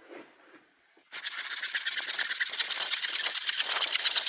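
Handsaw cutting through a wooden board in quick, steady strokes, starting about a second in.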